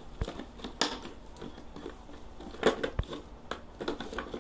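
A few sharp clicks and knocks of a hard plastic food container being handled, its clip-on lid being worked loose.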